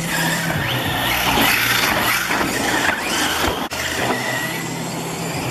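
Electric radio-controlled off-road buggies racing on dirt: motor whine rising and falling as they speed up and slow down through the corners.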